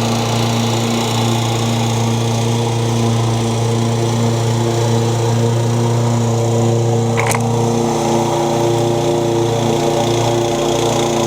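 Toro Super Recycler walk-behind mower engine running steadily at a constant speed, with one sharp click about seven seconds in.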